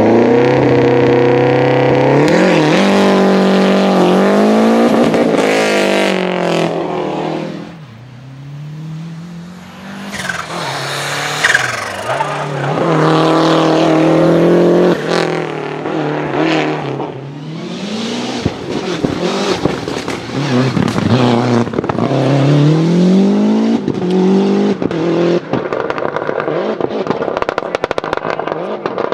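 Lancia Delta HF Integrale Group A rally car's turbocharged four-cylinder engine revving hard, its pitch climbing and dropping again and again through the gears. It quietens briefly about eight seconds in.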